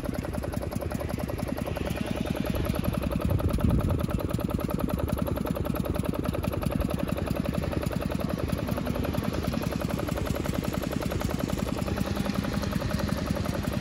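Bullock Supreme 1/2 HP stationary engine from the 1930s running steadily, with a fast, even exhaust beat.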